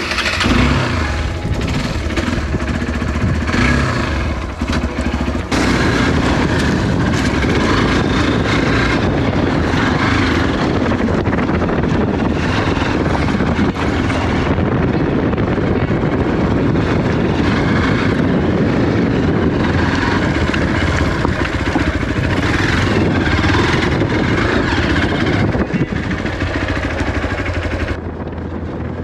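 Hero XPulse 200 single-cylinder motorcycle engine starting and running. From about five seconds in it pulls away and runs steadily under load as the bike rides across a stony riverbed, dropping a little in level near the end.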